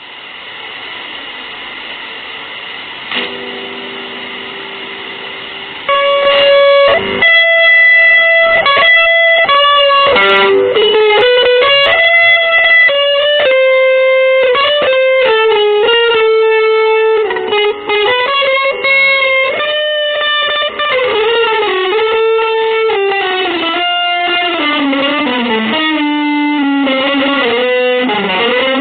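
Electric guitar played through effects. It starts as a quieter hazy swell with a low held note coming in about three seconds in. About six seconds in, a loud sustained lead line begins: one melody of many notes that slides and steps through pitch, drifting lower near the end.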